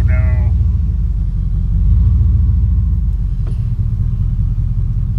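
A motor vehicle's steady low engine and road rumble. It eases off about three and a half seconds in, with a faint click.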